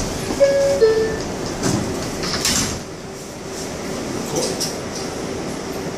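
R142a subway car's door-closing chime, two short falling tones, followed by the doors sliding shut and closing with a bang about two and a half seconds in.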